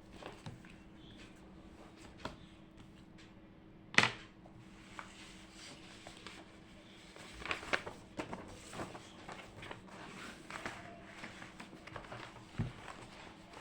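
Quiet room tone with a steady faint hum, broken by scattered small clicks and taps of things being handled; one sharp knock about four seconds in is the loudest, and the taps come more often in the second half.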